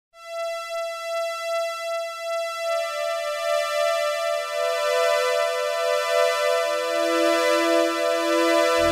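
A two-oscillator CS-80 synthesizer string patch, played dry with no effects: one sustained high note swells in with a gentle pulsing. Lower notes join one after another, building a chord that grows louder, and a deeper, fuller sound comes in right at the end.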